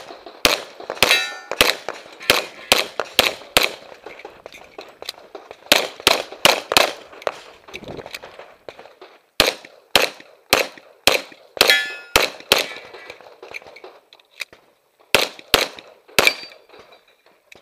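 Semi-automatic pistol fired in quick strings of shots, about two to three shots a second, with pauses of a second or two between strings. Steel targets ring after some hits, about a second in and again about twelve seconds in.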